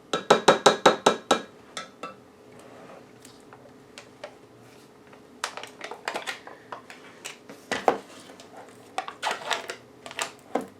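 A kitchen utensil clinking against a large measuring cup of cake batter: a quick run of about eight ringing taps at the start, then scattered lighter clinks and knocks.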